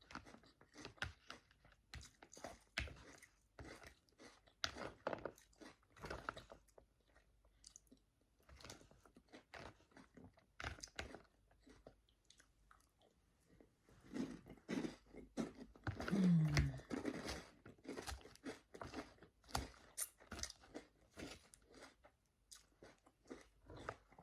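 Close-miked chewing of crunchy Caesar salad: crisp lettuce and croutons crunching between the teeth in irregular bites, with short pauses. A brief low, falling hum comes about two-thirds of the way through.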